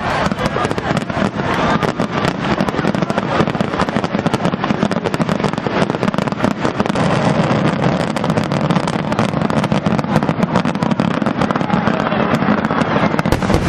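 Fireworks going off in a dense barrage: a continuous rapid crackling made of many quick cracks and pops over a steady rumble.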